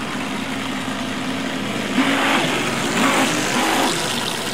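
Electric motor of a Neptune RC boat whining steadily as it runs across a pool, its pitch wavering in the second half. Two louder hissing rushes come about two and three seconds in.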